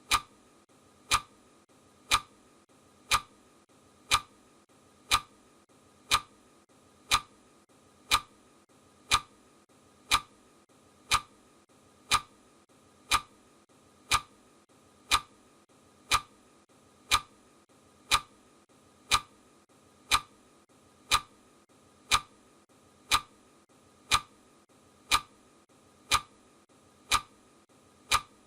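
Clock ticking sound effect: a sharp, even tick once every second.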